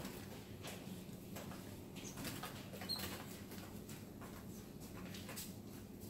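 Canaries and other small caged birds moving about a wire cage: scattered wing flutters, hops and light taps on perches and wire, with a couple of short, faint, high chirps.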